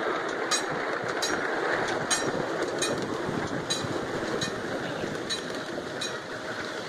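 Miniature ride-on railway car rolling along small-gauge track: a steady rumble of steel wheels on rail, with a sharp click a little more than once a second as the wheels cross rail joints.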